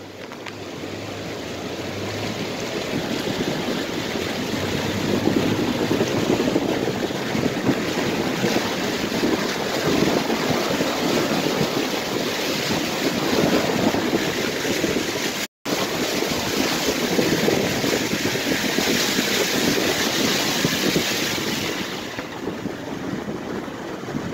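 Swollen, flooding river rushing past in a steady loud roar of water. The sound cuts out for an instant about fifteen seconds in.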